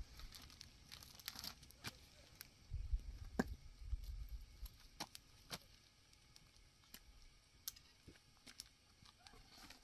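Faint crinkling and rustling of a large plastic bag being handled and hung on a tree branch, with scattered sharp crackles.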